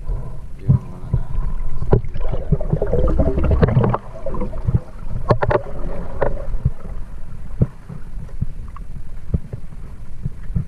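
Muffled underwater noise through a submerged camera: low rumbling water movement with scattered knocks and clicks, busier about two to four seconds in.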